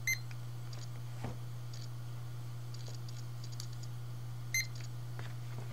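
Handheld barcode scanner beeping twice, about four and a half seconds apart, each short beep marking a good read of a textbook barcode. A steady low electrical hum and a few faint ticks lie under it.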